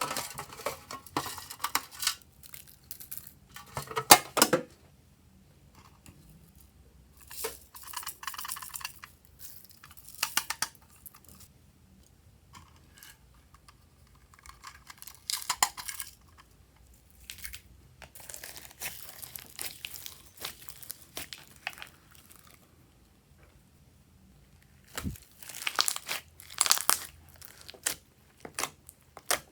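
Slime being worked by hand, in irregular bursts of noise a second or two long with quiet gaps between them.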